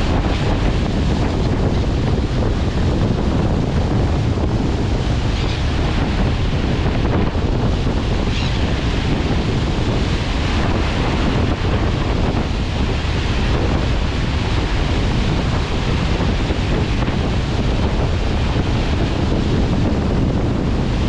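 Steady wind buffeting the microphone over the rushing wash of a passenger ferry's churning wake, with a low rumble underneath.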